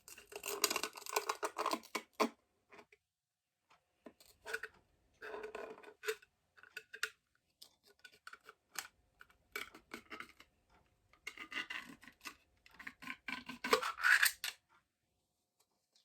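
Hard plastic of a handheld concert glowstick being handled: scraping, rubbing and sharp clicks, in four bursts of one to three seconds with short pauses between them.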